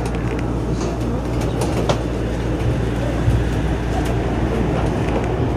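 Shonan Monorail 5000-series suspended monorail car running along its beam, heard from the front cab: a steady low hum and rumble with a few faint clicks.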